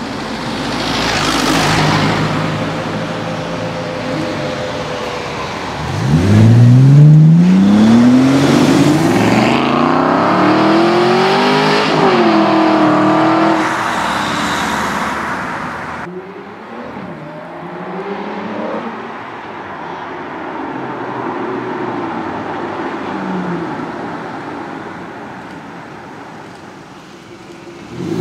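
Aston Martin and Bentley sports car engines pulling away hard along a street. About six seconds in, one engine revs up sharply, its pitch climbing through the gears with a shift near the middle. After an abrupt cut, another car's engine passes more quietly at low revs.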